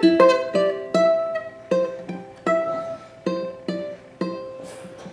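Ukulele picked one note at a time, the notes coming further apart and getting quieter as the tune slows to its end, the last note left ringing.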